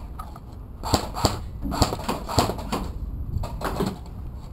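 Airsoft guns firing in short volleys of sharp cracks: about four groups of two or three shots.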